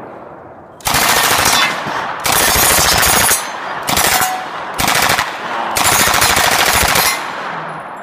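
Lage Mfg MAX-41A pulse rifle firing five bursts of fully automatic fire, starting about a second in. The last burst is the longest and the third the shortest.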